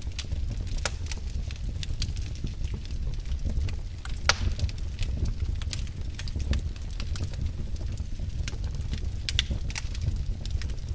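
Wood fire crackling in a fireplace: irregular sharp pops and snaps over a low steady rumble of the flames, with one louder pop about four seconds in.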